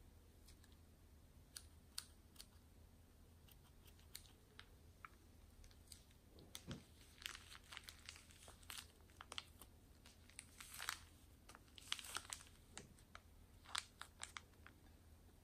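Clear plastic piping bag crinkling and crackling as a hand squeezes foam beads out of it into a glass bowl of slime glue. The crackles and clicks are sparse at first and come thick and fast through the middle and later part.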